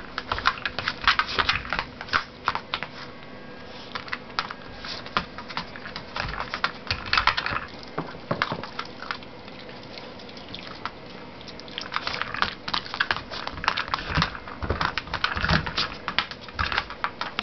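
A Miniature Pinscher nosing and pawing a Twist 'n Treat dispensing toy across a hardwood floor: busy, irregular clicks and knocks of the toy and the dog's claws on the boards, in clusters with a quieter spell in the middle.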